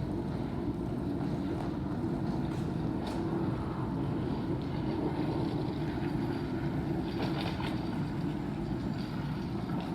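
Airport background noise: a steady low rumble with faint clicks or clatter about three seconds in and again around seven seconds.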